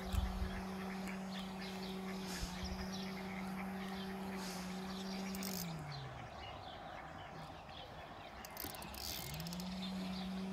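A motor hums at a steady pitch. About six seconds in its pitch drops away and dies, and about three seconds later it picks up again and rises back to the same pitch. Birds chirp throughout.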